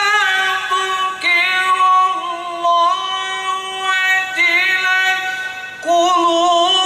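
A man's melodic Quran recitation (tilawah) into a handheld microphone, in long held high notes broken by quick wavering ornaments about a second in, around four and a half seconds in, and again near the end.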